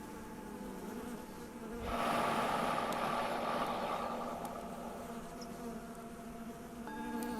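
Honeybees buzzing over lavender, swelling loudly about two seconds in as one passes close, then slowly fading. Under the buzzing a Tibetan singing bowl rings with several steady tones, and it is struck again near the end to mark the next breath.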